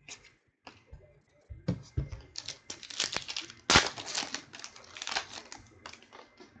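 A trading-card pack's plastic wrapper being torn open and crinkled: a dense crackling from about two seconds in until near the end, loudest just before the middle, after a few soft clicks of cards being handled.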